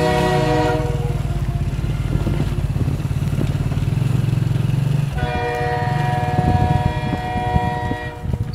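A vehicle engine running steadily, with a long, steady multi-tone horn blast. One horn fades out about a second in, and another sounds about five seconds in, lasting about three seconds.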